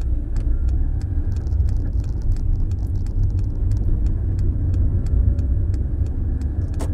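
Car driving, heard from inside the cabin: a steady low engine and road rumble, with light, irregular clicks and rattles throughout and a sharper click near the end.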